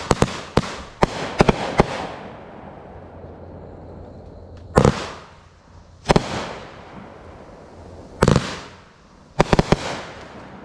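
16-shot 200-gram consumer firework cake (McFireworks 'Off the Hook') firing its shots. About eight sharp bangs come in quick succession over the first two seconds. Three single booms with echoing tails follow a second or two apart, and a last quick cluster of about four bangs comes near the end.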